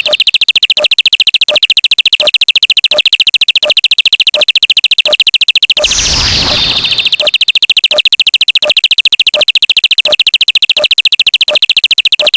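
Loud, harsh synthesized electronic buzz that pulses very rapidly, with a regular click about every 0.7 seconds. About six seconds in, a crashing noise burst with a falling sweep sounds over it for about a second.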